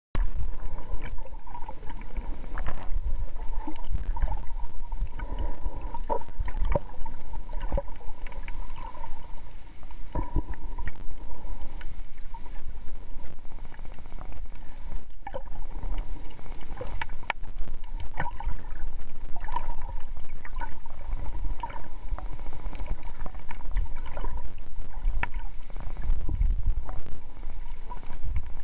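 Underwater sound picked up by a submerged camera: a steady low rumble of water moving around the housing, with scattered clicks and crackles and a faint steady hum.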